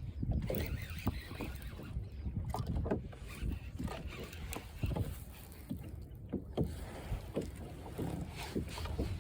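Water slapping and sloshing around a small boat, with irregular low knocks and thumps.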